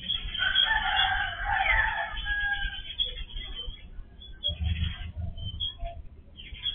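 A rooster crowing once, a single call of about two and a half seconds, heard through a security camera's microphone that cuts off the high end. A brief low rumble follows about two-thirds of the way through.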